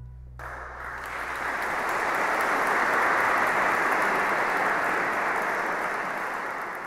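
The last chord of an 1835 Prestinari pipe organ dies away in the first moments, and an audience's applause starts about half a second in, swells, and carries on steadily.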